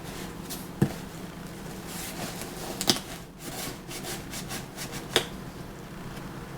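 Cardboard shipping box being opened by hand: rubbing and scraping, with three sharp knocks about two seconds apart.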